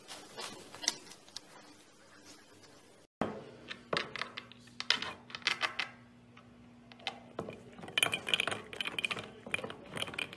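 A fluffy puppy mouthing and licking a glass tumbler, its teeth and tongue clicking and clinking against the glass in quick, irregular bursts.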